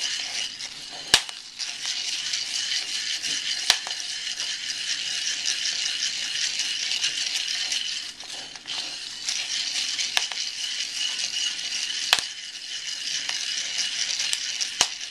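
Coffee beans being stirred with a wooden spoon in a hot cast iron pan, a steady dry rattle, with a few sharp, separate pops scattered through: the beans are entering first crack.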